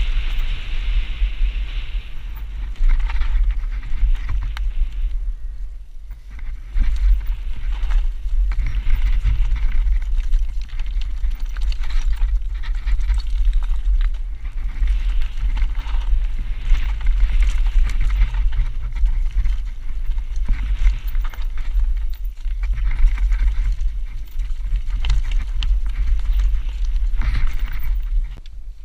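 Wind buffeting the microphone as a Specialized Enduro Elite full-suspension mountain bike runs fast down a dry dirt trail, with steady tyre noise on dirt and stones and the bike clattering over bumps.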